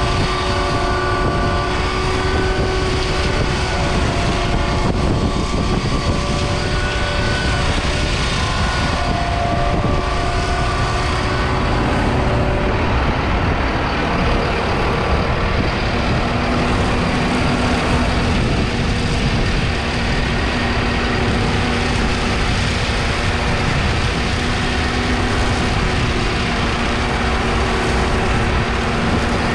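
Massey Ferguson 5S 145 tractor's 4.4-litre four-cylinder diesel running steadily under work. A steady low hum sets in about halfway through.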